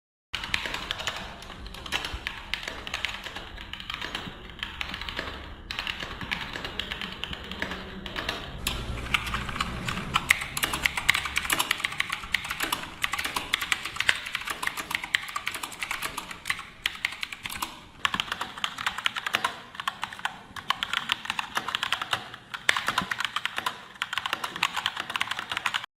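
Fast, continuous typing on a mechanical computer keyboard: a dense run of clacking keystrokes with no pauses.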